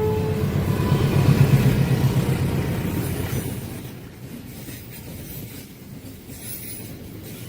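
A train horn cuts off just as the sound begins, leaving the low rumble of a passing train on the rails. The rumble is loudest about a second and a half in, then fades away from about three and a half seconds.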